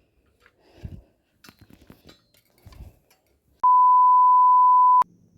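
A loud, steady, single-pitched electronic beep lasting about a second and a half, starting and stopping abruptly near the end, after a few faint clinks and knocks.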